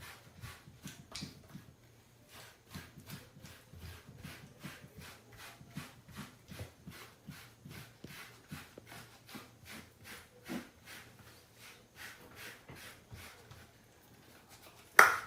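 A brush stroking through a cat's fur in quick repeated strokes, about three a second, with one sharp knock near the end.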